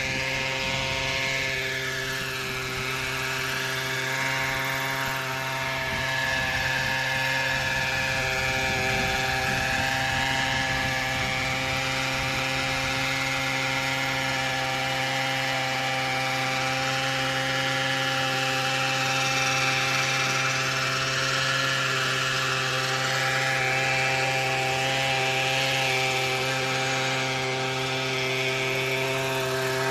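Century 800-size gas-powered RC helicopter in flight: the steady drone of its gas engine and rotor, with the tone sweeping slowly up and down as it moves about.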